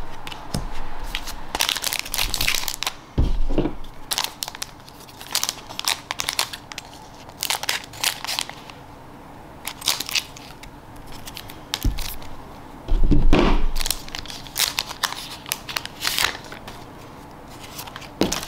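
Foil trading-card booster pack crinkling as it is handled and cut open with scissors, in a string of short crackling rustles, with a louder bump about two-thirds of the way through.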